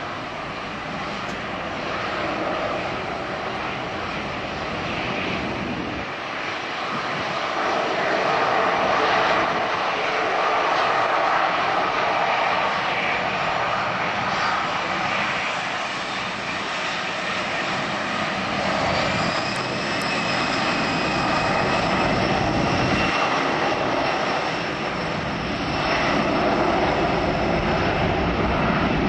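Airbus A320-111's twin CFM56 jet engines running at low taxi power: a steady jet rush with a high whine that rises about two-thirds of the way through, then holds.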